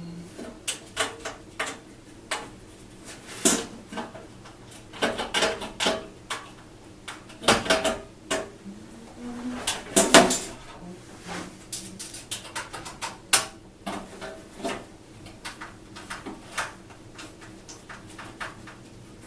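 Bare Corten steel planter panels clinking and clanking as they are handled and screwed together with a Phillips screwdriver. The knocks come irregularly, the loudest about ten seconds in.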